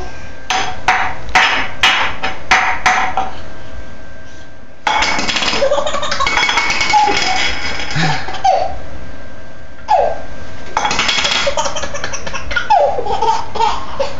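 A baby laughing hard in fits: a quick run of short laughs near the start, then longer bouts of belly laughter, with an adult laughing along.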